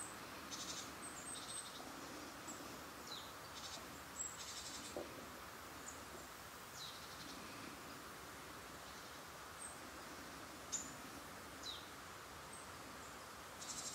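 Faint woodland birdsong: thin high call notes sweeping downward every few seconds, mixed with several short buzzy trills, over a steady soft hiss.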